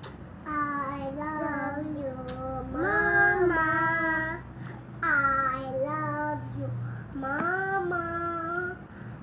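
Young children singing together in a child's high voice, about five sung phrases of held notes with short breaks between them.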